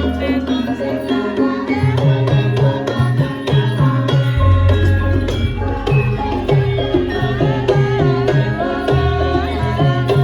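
Javanese gamelan music accompanying a lengger dance: hand-drum patterns under ringing pitched metal tones, with a wavering melodic line coming in over the top in the second half.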